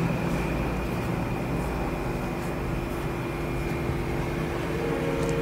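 A steady low motor-like hum, with faint soft sounds of a hand working moist rice-flour dough in a bowl.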